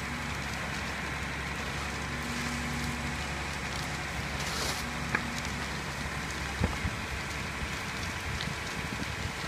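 A fully engulfed burning house crackling steadily, with a couple of sharp pops a little past halfway, over the hiss of a fire hose stream and a low steady engine drone from the fire apparatus.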